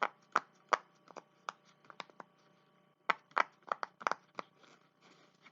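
Silicone pop it fidget toy, its bubbles pressed through one by one: a string of sharp, separate pops, irregularly spaced, pausing briefly midway and then coming quicker for a run of several.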